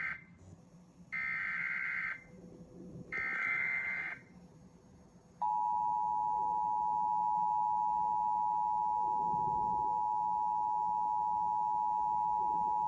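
Emergency Alert System alert announcing a severe thunderstorm warning: the tail of one burst, then two more one-second bursts of the SAME digital header's warbling data tones with short pauses between them. About five seconds in, the steady two-tone EAS attention signal starts and holds without a break.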